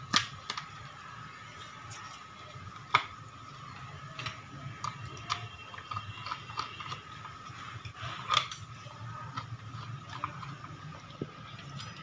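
Vacuum cleaner motor parts being fitted together by hand: scattered clicks and light knocks of metal parts, the sharpest near the start and about three seconds in, over a steady faint background hum.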